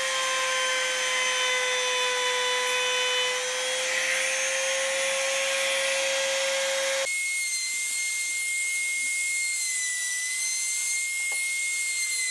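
Trim router with a 45-degree chamfer bit running at speed, cutting chamfers on hardwood stretchers: a steady high whine. About seven seconds in it jumps abruptly to a higher, thinner tone.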